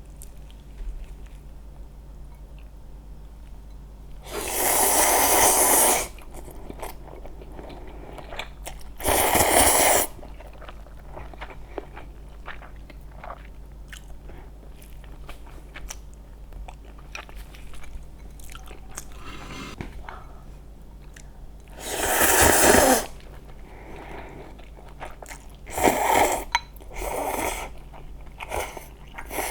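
Close-miked eating: about five loud crunchy bites, each lasting about a second, with quieter chewing and small mouth clicks between them.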